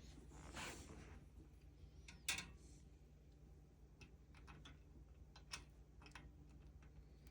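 Near silence broken by faint scattered clicks and ticks of small metal assembly hardware, a screw, washer and brace rod, being handled and worked into place; the sharpest click comes a little over two seconds in.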